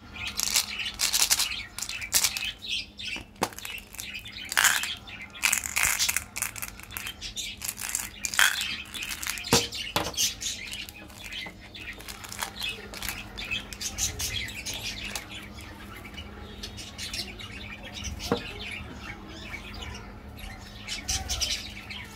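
Crinkly plastic and foil candy wrappers rustling and tearing as they are peeled open by hand, with a few sharp plastic clicks. The rustling is busiest and loudest in the first half.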